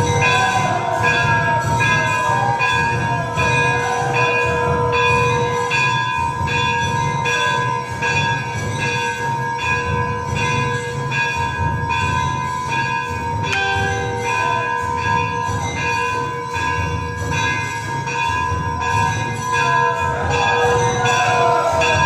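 Temple bells ringing continuously, struck in an even rhythm of about two strokes a second, with a steady ringing tone that holds between strokes.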